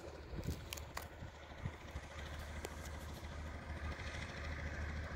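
Distant logging truck engine, coming in empty, running steadily and growing gradually louder as it approaches, with a few sharp crackles early on.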